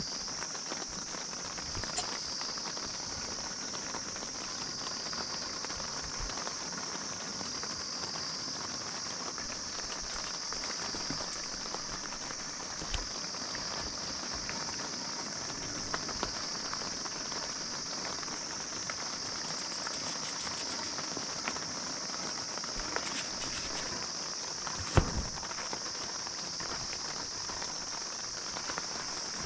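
Steady rain patter on a tent with a constant high-pitched whine over it, broken by a few sharp clicks and taps from handling a camp stove and pot, the loudest about 25 seconds in.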